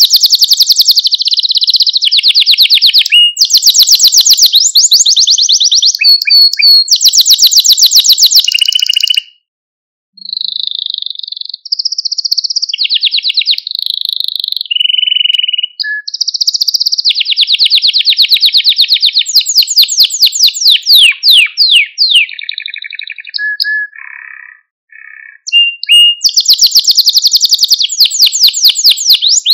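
Male canary singing: long runs of very fast trilled notes and rolls, high-pitched, broken by brief pauses about nine and twenty-five seconds in.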